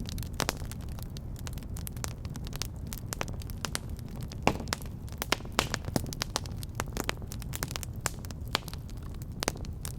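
Wood fire burning in a fireplace: a steady low rumble of the flames with frequent sharp, irregular crackles and pops, one louder pop about halfway through.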